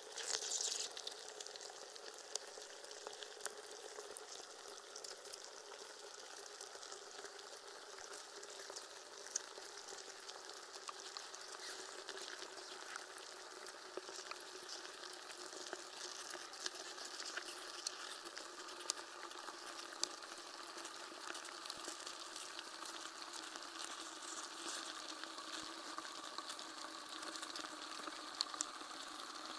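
Continuous crackling static hiss with scattered clicks and faint steady droning tones underneath, with a brief louder hiss in the first second.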